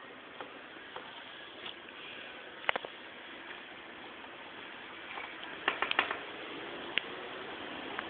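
Sharp little clicks and cracks of sunflower seeds being cracked open by small pets: a pair a little under three seconds in, a quick run of several around six seconds, and one more a second later, over a steady hiss.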